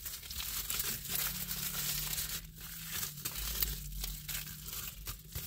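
A burger wrapper being unfolded and opened by hand: continuous paper crinkling and crackling.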